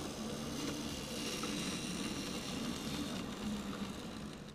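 N scale model train running past on the track: the locomotive's motor humming and the wheels rolling on the rails, a little louder as it passes closest.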